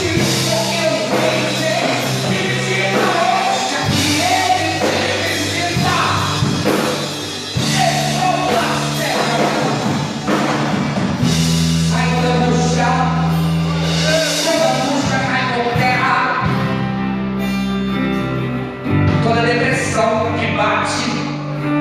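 Gospel worship music: a band playing with voices singing.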